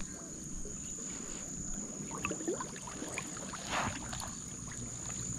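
Outdoor ambience: a steady high insect drone over a low wind rumble, with scattered small clicks and a brief rustle about four seconds in.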